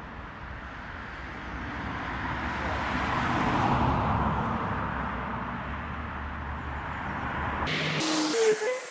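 A road vehicle passing: its noise swells to a peak about three and a half seconds in, then fades. Near the end the background cuts off abruptly.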